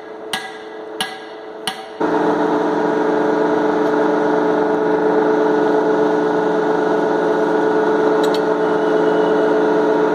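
Ball peen hammer striking a red-hot mild steel rod on an anvil, three blows about two-thirds of a second apart, flattening the round bar to a rectangular section. About two seconds in, the blows give way to a loud, steady machine hum.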